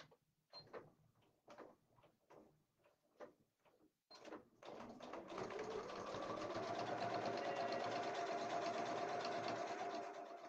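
Domestic electric sewing machine: a few light clicks and knocks, then about four seconds in the machine starts, speeds up and runs steadily, stitching a straight seam to close off a boxed corner of the fabric basket.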